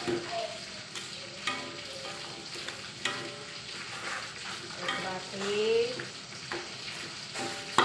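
Wooden spatula stirring and scraping a chunky sardine curry in a wok while the sauce sizzles, with several sharp knocks of the spatula against the pan, the loudest near the end.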